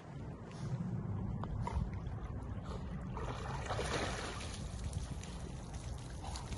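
Lake water splashing and sloshing as a swimming dog reaches the bank and scrambles out, loudest about three to four and a half seconds in, over a steady low rumble.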